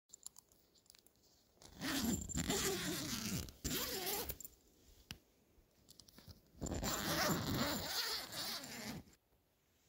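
Tent door zipper being pulled open in two long strokes, each lasting about two and a half seconds, with a pause of about two seconds between them.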